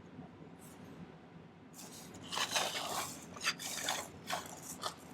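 A quick run of short scrapes and rubs on a jeweller's workbench, starting about two seconds in and ending near the end: hands and a tool working over the silver wire while its centre point is measured and marked.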